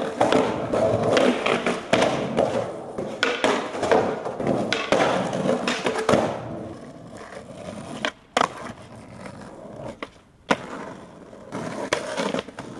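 Skateboard wheels rolling hard over rough concrete, with repeated clacks of the board for about six seconds. The rolling then dies down, two sharp smacks of the board come a couple of seconds apart, and near the end the board scrapes along a concrete curb.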